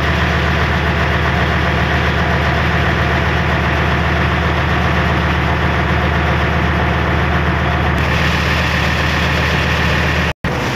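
Passenger river-taxi boat's inboard engine running steadily under way, a loud, even low drone. The sound drops out for a split second near the end.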